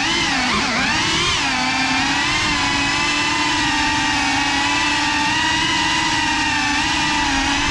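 FPV quadcopter's motors and propellers whining as it flies. The pitch swings up and down for the first second or so as the throttle changes, then holds nearly steady.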